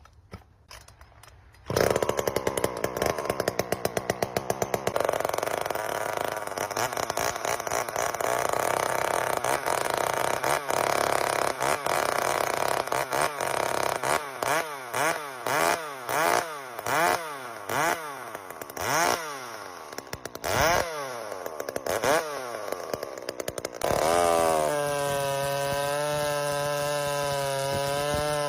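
Two-stroke chainsaw catching on a cold start after sitting unused for a couple of weeks. It runs at high speed at first, then the throttle is blipped over and over, the revs rising and falling, and near the end it settles into a steady idle.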